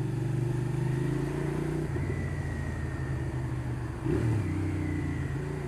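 Motorcycle engine running on the move, its note shifting about two seconds in and again about four seconds in.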